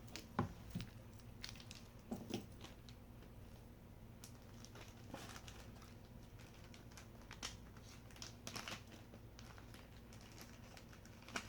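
Faint scattered clicks and rustles of jewelry pieces being handled and set down, over a steady low room hum.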